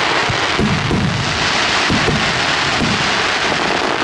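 Fireworks display: aerial shells bursting in several booms about a second apart, over a steady loud hiss of sparks.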